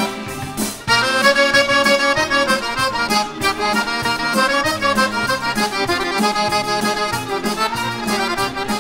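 Guerrini piano accordion playing a solo melody over a folk orchestra in the instrumental break of a sevdah song. The music dips briefly about half a second in, then comes back in full.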